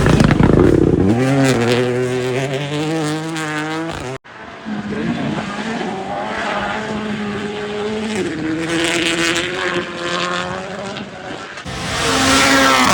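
Rally cars passing at full throttle, engines revving hard with pitch rising and falling through gear changes. About four seconds in the sound cuts abruptly to another car, whose engine climbs in steps as it shifts and grows loud near the end.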